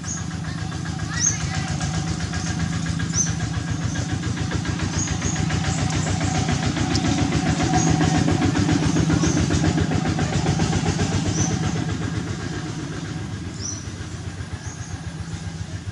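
A motor vehicle engine running, growing louder to its peak about halfway through and then fading, as when a vehicle passes by. Short high chirps repeat throughout.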